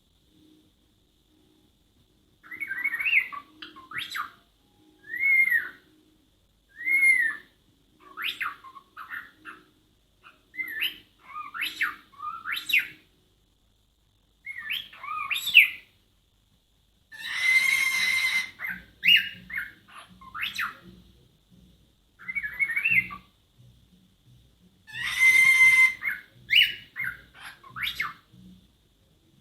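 Cockatiel imitating R2-D2: a run of short gliding whistles and chirpy beeps with pauses between them. In the second half come two longer, harsh screeches, the bird's version of R2-D2's scream.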